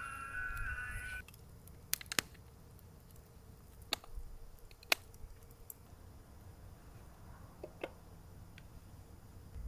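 A held, ringing tone that stops about a second in, then a handful of sharp clicks and taps a second or two apart over a low steady rumble.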